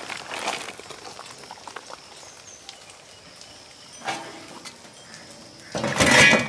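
Large pot of water boiling as boiled spiny lobsters are lifted out with a perforated metal skimmer, with a brief loud noise near the end.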